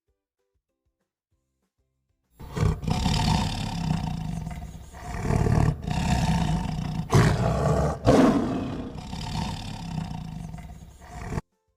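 A big cat roaring several times in a row, a recorded animal-sound clip that starts after about two seconds of silence and cuts off suddenly near the end.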